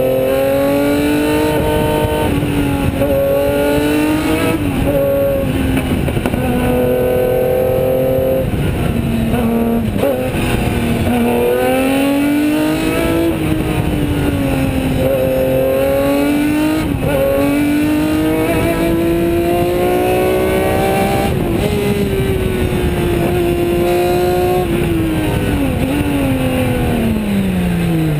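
Osella PA 20 S race car's engine at full throttle up a hillclimb, its pitch repeatedly climbing through the revs and dropping at each gear change and corner, then falling steeply near the end as the car slows. Wind rushes over the open cockpit underneath.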